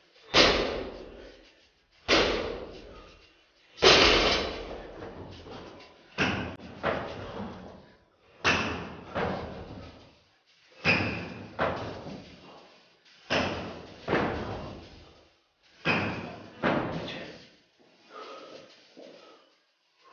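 Heavy thuds on a rubber-matted gym floor from an athlete doing burpees, one about every two to two and a half seconds, echoing in the room. From about six seconds in, each rep gives two thuds close together, the drop to the mat and the landing. The thuds turn faint near the end.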